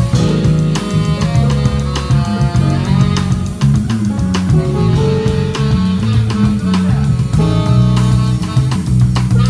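Live band playing a funky groove: a prominent electric bass line over a drum kit, with chords held above.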